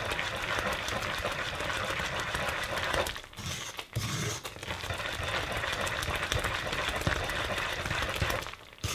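Wooden spoon stirring fast through thick, crystallizing maple syrup in a stainless steel pot, a steady rough churning and scraping. It pauses briefly about three seconds in and stops near the end. This is the last stage of making maple sugar, stirring hard to drive off the remaining moisture.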